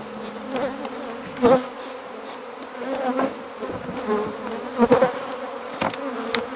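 A defensive colony of honeybees buzzing in a steady, slightly wavering hum, with bees flying close around the microphone. A few sharp knocks stand out, the loudest about a second and a half in and near five seconds.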